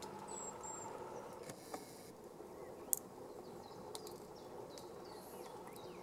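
Faint outdoor ambience: small birds chirping thinly at a high pitch, over a steady low hum. A sharp click about three seconds in, with a softer one just before.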